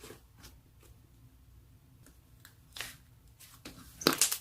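Slime being squished and pressed by hand, giving soft crackling, crinkly squishes, with louder ones about three seconds in and near the end.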